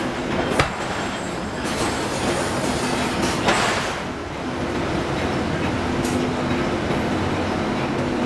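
Forge shop din: hydraulic forging hammer machinery running with a steady hum, a sharp knock about half a second in and a heavier hit about three and a half seconds in.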